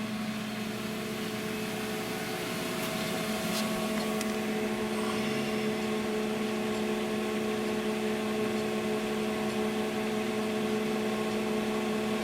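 Berco RTM260A crankshaft grinder running under power with no work in progress: its hydraulic unit and grinding-wheel drive give a steady electric hum made of several fixed tones over a mechanical hiss.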